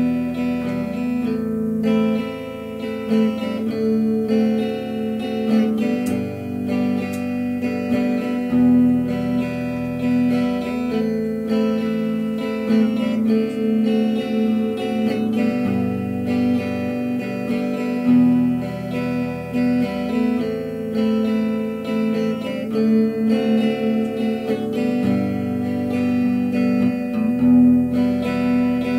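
Background music: guitar-based instrumental with strummed and plucked guitar chords changing every couple of seconds.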